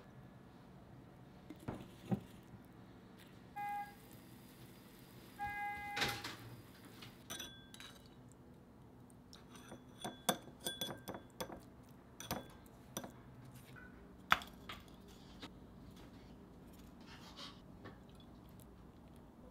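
Dishes and kitchen utensils clinking and knocking now and then, some with a brief ring, with two short electronic beeps about four and five and a half seconds in.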